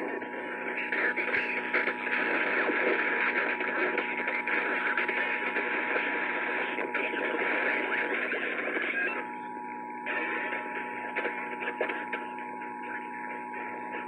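Emergency Alert System two-tone attention signal (853 and 960 Hz together) coming through an AM radio over a haze of static. The tones break off about 8 s in for roughly a second, then sound again until near the end.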